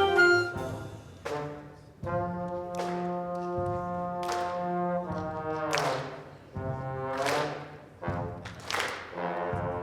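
Live brass ensemble or band playing held chords, with sharp percussion hits about every second and a half.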